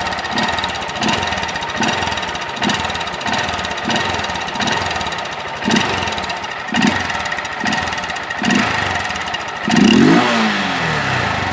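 Honda CG Fan 160's single-cylinder engine revved in short blips about once a second through a homemade plastic-pipe exhaust extension, then given one longer, harder rev near the end that falls back toward idle.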